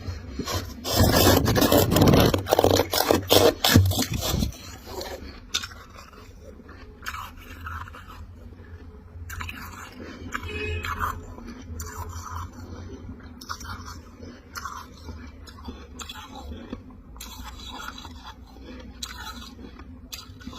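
A spoon scraping through refrozen dry freezer frost, loud for the first four seconds or so. After that come quieter short crunches of frost being bitten and chewed, spread through the rest.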